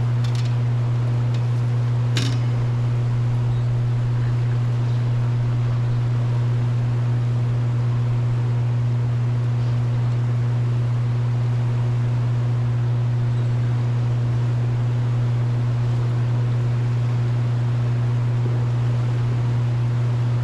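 Steady low hum from the hydroelectric dam's powerhouse over the rush of churning tailwater, with one brief click about two seconds in.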